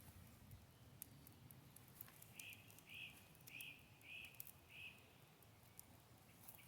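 Faint series of five short, high chirping notes, evenly spaced about half a second apart, over quiet background hum.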